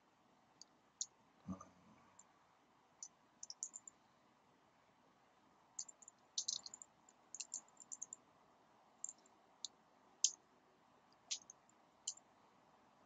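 Faint, irregular clicks of computer keyboard keys being typed, with a quick cluster of keystrokes about six and a half seconds in. There is a soft, low thump about a second and a half in.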